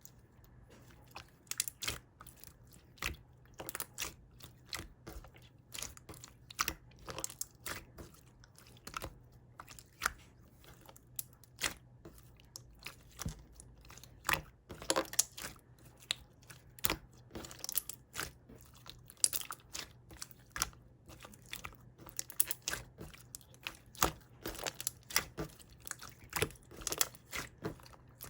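Whole comb honey being bitten and chewed, with irregular crunches of the wax comb several times a second.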